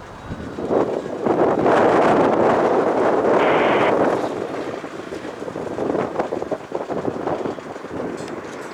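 Strong gusty wind buffeting the microphone, a rough rushing noise that swells about a second in, eases off midway and builds again near the end.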